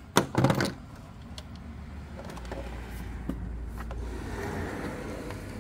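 A few loud knocks and rattles in the first second as the camera is handled and set down, then a steady low rumble from about halfway through.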